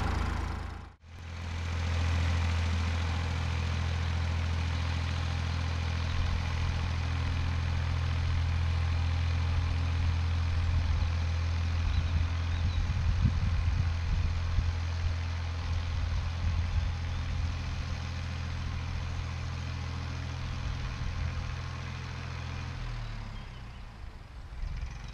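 Fordson Dexta tractor's three-cylinder diesel engine running steadily at a constant speed, a low even hum that fades away near the end.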